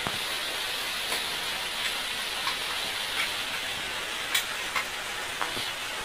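Scattered light clicks and taps of thin plastic panels being handled and pressed together while assembling a snap-together shoe organizer box, the sharpest about four and a half seconds in, over a steady hiss.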